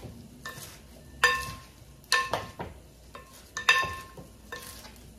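Serving utensils stirring a salad in a bowl, with a few ringing clinks as they strike the bowl's side.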